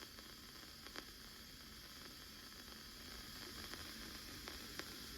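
Faint, steady radio static hiss in a pause of a broadcast, with a couple of faint clicks.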